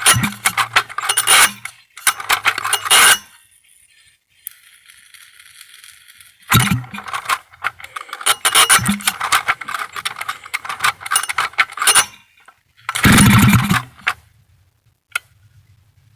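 Vintage Stihl 051 AV two-stroke chainsaw being started. It fires in short bursts of a second or so, runs for about five seconds, and fires once more, cutting out each time. The owner suspects the carburettor or the crankshaft seals of keeping it from running.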